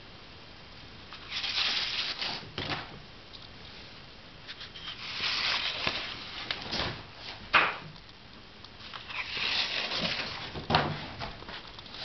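Rustling in three bursts of a second or two each, with a few sharp clicks or knocks between them.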